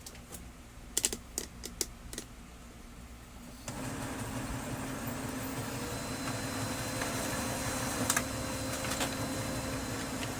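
A few sharp clicks, then about four seconds in a Brother DCP-L2540DW laser printer starts a test print, its drive motor and gear train running steadily with a low hum and a faint high whine. The gears run smoothly, with no grinding, after the gear-noise repair.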